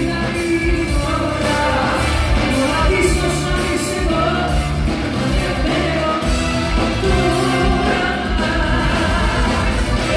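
Live band music with a woman singing over a steady beat, heard in a large room.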